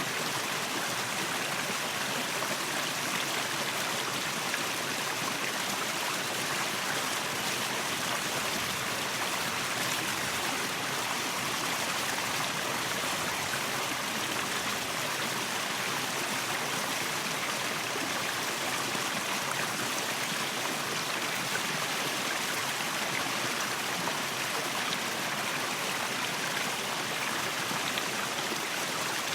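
Waterfall: water falling and splashing in a steady, even rush, with fine trickling and spattering detail.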